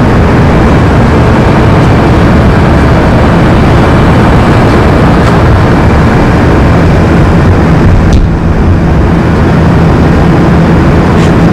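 Loud, steady rush of outdoor city noise with a low rumble, like traffic and wind on the microphone; it dips briefly about eight seconds in.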